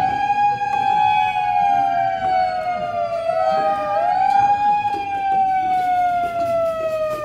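A siren sounding loudly, its wailing tone rising quickly and then slowly sinking, with a fresh rise starting about three seconds in while the previous one still fades.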